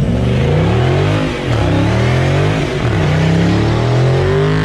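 Dodge Charger's engine revving hard while its rear tyres spin and squeal in a smoky burnout donut. The revs rise and fall several times, with a brief dip about a second and a half in.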